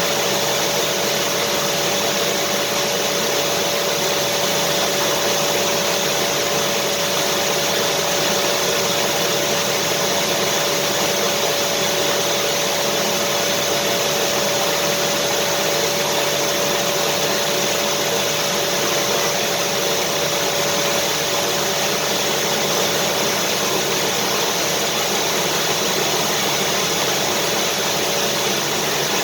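Vacuum cleaner running steadily: a constant rushing noise with one even motor whine through it, unchanging throughout.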